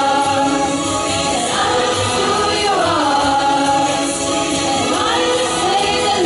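Music: a choir of young voices singing together, holding long notes that slide between pitches.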